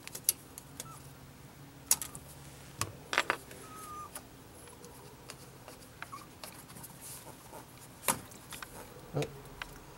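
A handful of sharp plastic clicks and snaps as the clips and electrical connectors on a 2.4 L Ecotec's fuel injectors are worked loose by hand, with soft handling rustle between them.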